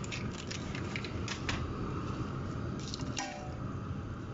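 A few light clicks and taps from handling the noodles at the pot, over a steady low rumble from the gas burner heating the water.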